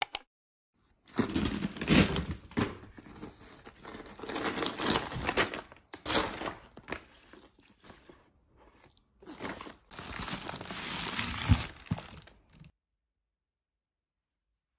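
Plastic packaging crinkling and rustling as groceries are unpacked by hand from an insulated delivery bag. It comes in several stretches with short gaps.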